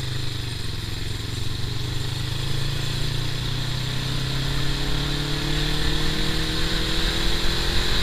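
Motorcycle engine running under way, its pitch climbing slowly as it speeds up from about three seconds in, over a steady rushing noise.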